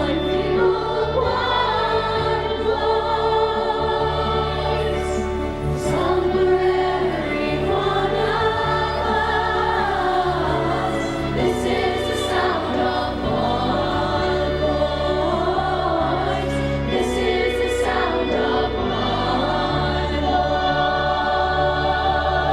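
Choral singing over instrumental accompaniment, with voices gliding between long held notes above sustained low bass tones that change every few seconds.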